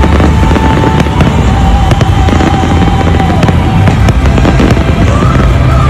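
Fireworks: a dense run of sharp crackles and pops over a deep rumble, with music underneath.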